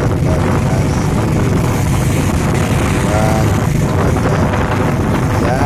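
Motorcycle ride: the engine runs steadily under a constant rush of wind buffeting the microphone.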